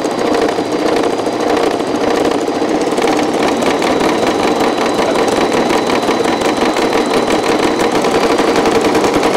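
Singer Promise 1412 electric sewing machine stitching at a steady speed, its motor and needle running in a fast, even rhythm. It is sewing a decorative spike-shaped pattern stitch.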